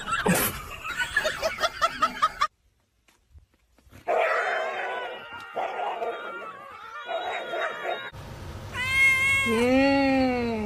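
A domestic cat meowing near the end: a short high call, then one long drawn-out meow that rises and falls in pitch. Before it come short repeated pulses, a brief silence, and a few seconds of other pitched calls or voices.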